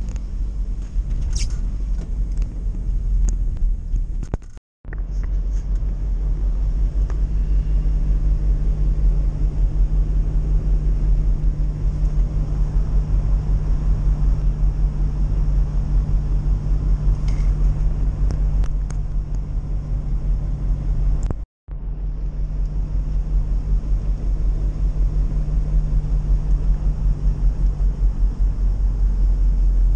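UAZ-2206 van driving at a steady speed, heard from inside the cabin as a steady low engine and drivetrain rumble with road noise. The sound cuts out twice for a moment, about five seconds in and again about two-thirds of the way through.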